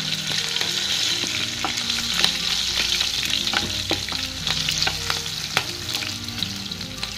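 Hot oil and ghee sizzling in a kadhai with a spice tempering of cumin, mustard seeds, green chilli and bay leaves, the mustard seeds crackling with many small pops. Near the end a wooden spatula stirs the spices through the oil.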